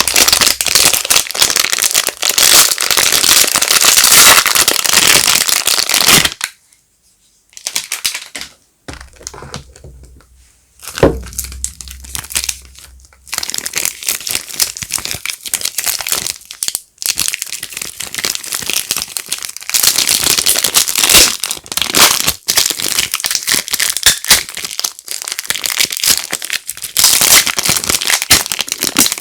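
Soap packaging being unwrapped by hand: dense, loud crinkling and crackling of the wrapper, breaking off for a few seconds about six seconds in, then starting again in short spells.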